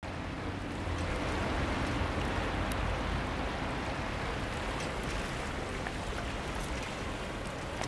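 Steady rushing ambient noise with a low rumble underneath, like running water.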